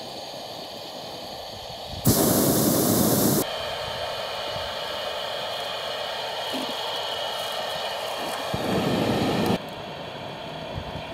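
Hot air balloon's propane burner firing in two short blasts, each a loud rushing roar that starts and stops abruptly, about two seconds in and again about six seconds later, over a steady hiss.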